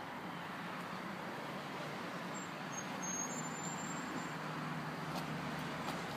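Steady outdoor road-traffic noise: an even hiss with a faint low hum underneath.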